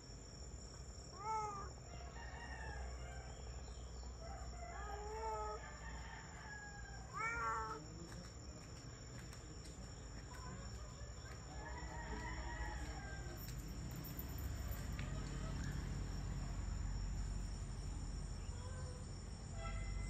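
Roosters crowing a few times in the first half, over a steady high insect drone. A low rumble swells in the second half.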